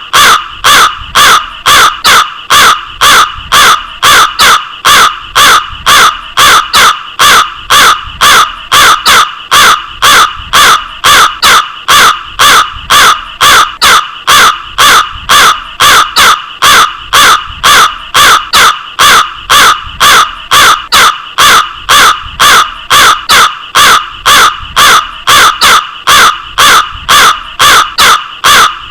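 Crow cawing over and over, short harsh caws evenly spaced at about two a second.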